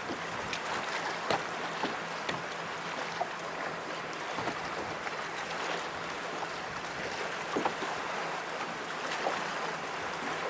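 Small waves lapping against the hull of a fishing boat, with wind on the microphone and scattered small clicks.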